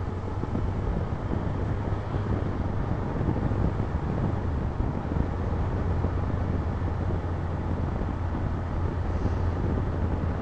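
Motorcycle running at a steady cruising speed: a constant low engine hum under wind and road noise on the on-board camera's microphone.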